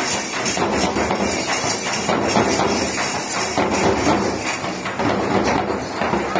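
Gondi folk dance percussion: drums beaten with small metal hand cymbals clashing along in a steady, dense rhythm.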